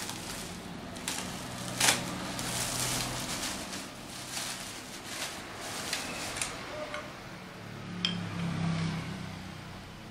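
Plastic wrapping crinkling and rustling as it is handled around a small manual die-cutting press, with sharp clicks and knocks from its metal parts, the loudest about two seconds in and another about eight seconds in.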